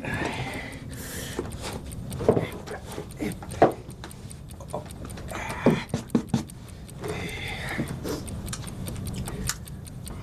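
A person moving about and settling into an armchair: scattered knocks, rustling and creaks, with a few sharper knocks in the middle.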